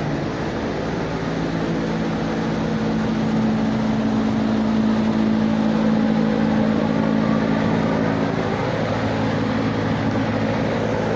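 A machine running steadily, a loud low droning hum whose pitch shifts slightly about nine seconds in.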